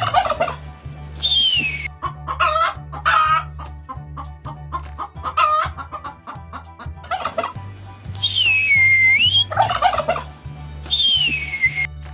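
Turkey gobbling in a series of short warbling calls. Twice, near the start and near the end, a whistle swoops down and back up, and a steady low beat runs underneath.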